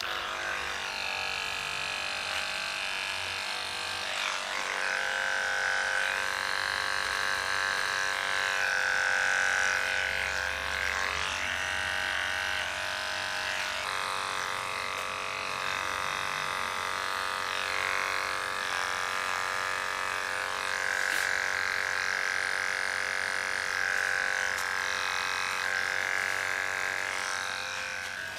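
Electric barber hair clipper running with a steady buzz that starts abruptly; its tone brightens and dulls every few seconds.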